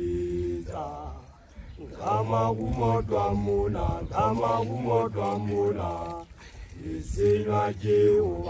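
Group of Basotho initiation graduates chanting together a cappella, men's voices without instruments. The chant comes in phrases with short breaks about a second in and just after six seconds, and ends on a held note.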